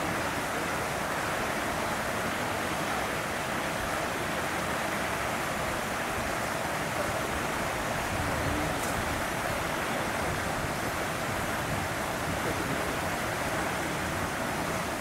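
Steady rushing background noise, an even hiss with no distinct sounds standing out.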